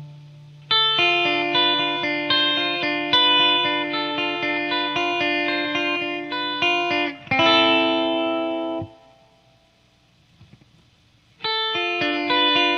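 Electric guitar (Les Paul Custom) played through a Boss ME-50's chorus into miked Marshall amps. Picked notes and chords run until a strummed chord rings out and stops about nine seconds in. After a short near-silent pause, the playing starts again near the end.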